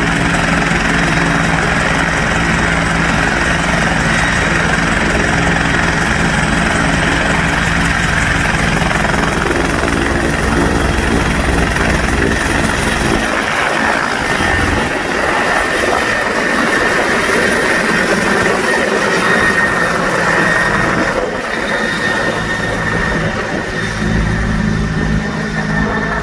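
Four-bladed helicopter running on the ground with a steady high turbine whine, then lifting off about halfway through and climbing away overhead.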